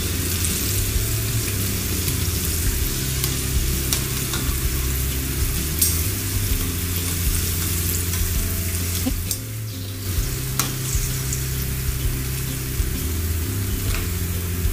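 Spring rolls deep-frying in hot oil in a wok, a steady sizzle, the rolls golden and nearly done. A few sharp clicks of metal tongs and a slotted skimmer against the pan as rolls are lifted out. The sizzle dips briefly about nine seconds in.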